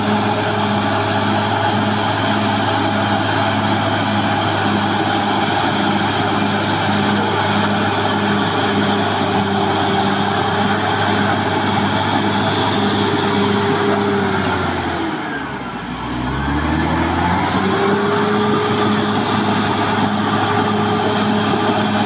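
Caterpillar D6 bulldozer's diesel engine running steadily under load, with a pulsing beat. About fifteen seconds in, the revs drop sharply and then climb back up over a couple of seconds.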